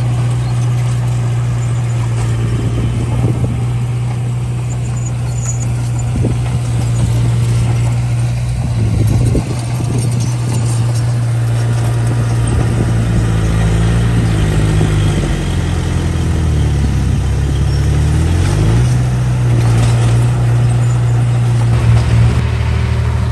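Small bulldozer's diesel engine running steadily at a low, even pitch; past the middle the engine note drops and then climbs back up, with a few light knocks over it.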